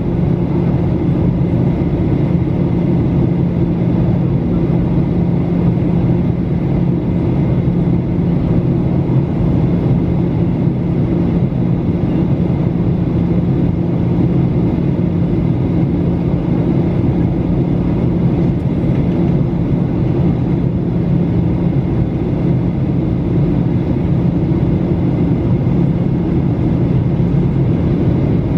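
Cabin noise of a Boeing 737-800 on descent, heard from a window seat: a loud, steady rush of its CFM56-7B engines and the airflow, with a low hum running under it.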